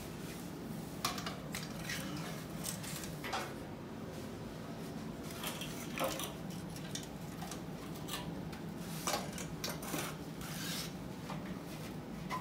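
Scattered clicks and knocks of a liquid-nitrogen storage dewar's plastic canister and lid being handled and fitted back on, over a steady low hum.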